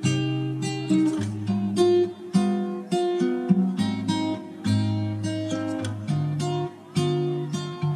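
Background music: strummed acoustic guitar playing a run of changing chords.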